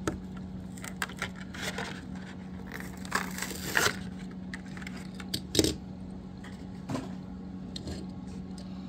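A Hot Wheels blister package being opened by hand: the plastic blister and card crackle and tear in scattered bursts, busiest about three to four seconds in, with a few sharp clicks. A steady low hum runs underneath.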